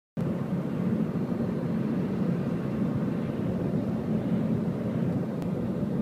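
Steady low rumble of road and engine noise from a moving vehicle, heard from inside it as it drives along.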